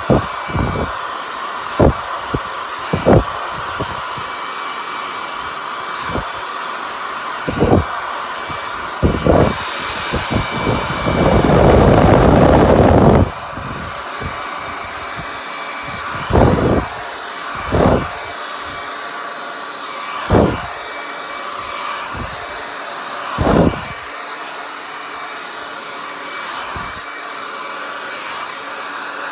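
Handheld hair dryer running steadily as it blows a wet wig dry, with low thumps now and then. It grows louder and fuller for a couple of seconds around the middle.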